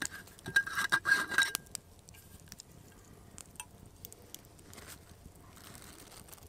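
A metal bottle clinking and scraping for about a second, starting about half a second in, with a ringing metallic tone. Faint rustling follows.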